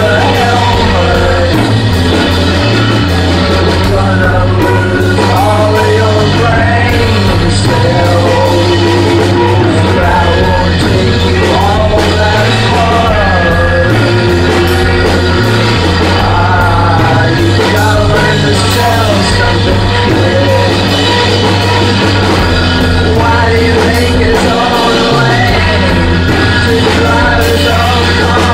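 Rock band improvising live in a rehearsal room: drums and instruments with a low line changing note every second or so, under a loud sung vocal that slides up and down in pitch. The vocal is re-amped through a Leslie speaker cabinet, and the in-room vocal sound washes over the drums.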